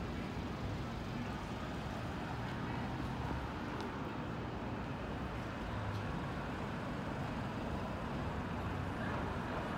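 Steady urban ambience with a low, even rumble of road traffic.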